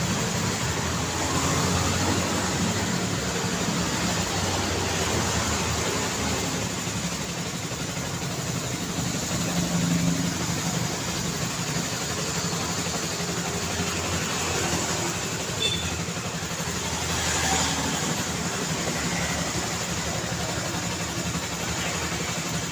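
Busy city street traffic: vehicles passing and engines running in a continuous mixed rumble, with one vehicle passing louder about 17 seconds in.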